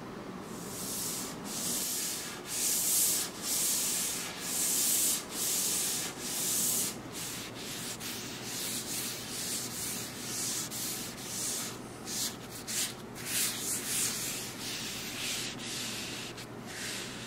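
A gloved hand rubbing a pad back and forth over a sinker cypress tabletop, giving a run of hissing strokes. The strokes come about one a second at first and quicker in the second half.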